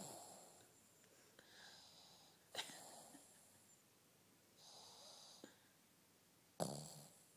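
Sleeping pug snoring faintly: three sharp snorting breaths, each trailing off, with softer wheezy breaths in between.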